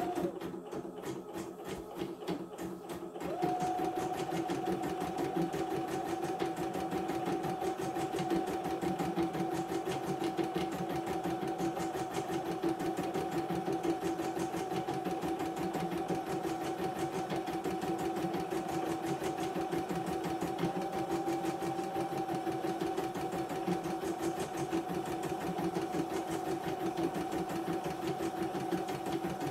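YOKO portable computerized embroidery machine running and stitching: a rapid, even needle rhythm that steps up to a louder, faster steady speed about three seconds in. It runs with its presser-foot sensor bypassed, and the mechanic judges its movement normal.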